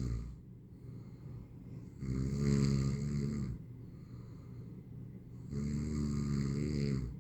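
A sleeping person snoring: two long, low, buzzing snores about three and a half seconds apart, with quiet breathing in between.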